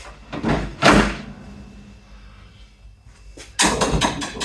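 A sharp knock about a second in, ringing on briefly, then a short rattling clatter near the end.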